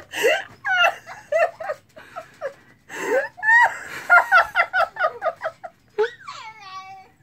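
A woman laughing hard in repeated fits, with one long falling high note near the end.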